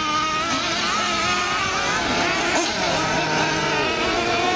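Several 1/8-scale nitro RC off-road buggies racing, their small two-stroke glow engines revving up and down as they take the corners. The overlapping high-pitched whines waver throughout, and one rises near the end.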